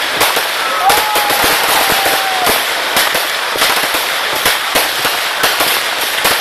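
Fireworks display: a dense, continuous barrage of crackling and banging from aerial shells and firecrackers bursting. A thin whistling tone sounds for about a second and a half, starting about a second in.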